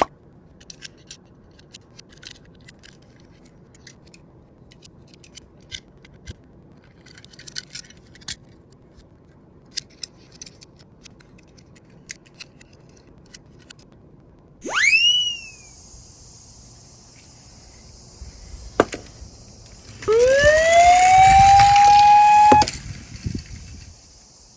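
Small clicks and rattles of die-cast minicars on a toy slope, then a falling whistle about midway. Near the end comes a police siren wail that rises and holds for about two seconds, the loudest sound, over a steady hiss.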